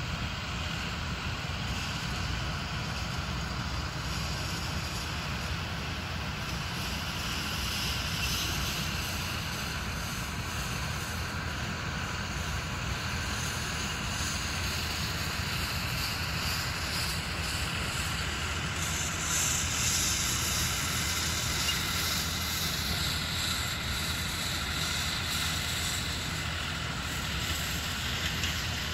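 Steady wind noise on the microphone over an even low rumble, with no distinct events.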